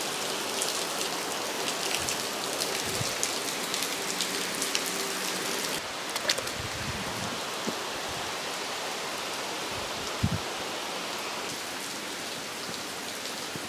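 Heavy rain falling steadily and streaming off clay-tiled roof eaves, with scattered louder drips.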